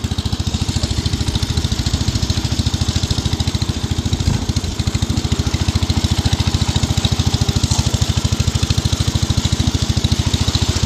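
Wheel Horse 245 hydrostatic riding mower's engine running at a steady, even beat, its mower deck not driven. There is a brief louder thud about four seconds in.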